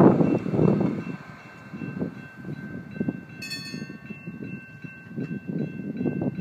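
Siemens-Duewag U2 light-rail train moving through the station, an uneven low rumble, with a brief ringing tone about three and a half seconds in.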